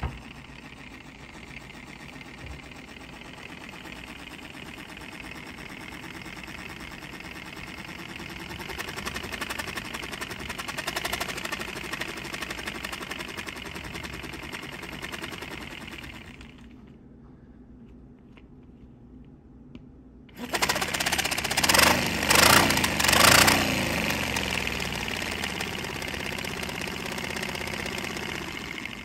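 Paper V-twin air engine running on low-pressure air fed through a tube: a fast mechanical rattle with a hiss of escaping air. It dies down a little past halfway, then starts again louder and keeps running, loudest a few seconds after it restarts.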